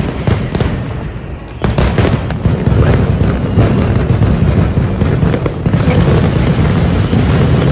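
Mascletà firecrackers going off in a rapid string of loud bangs. The bangs grow louder and denser about a second and a half in, then merge into one continuous rumbling barrage in the last couple of seconds.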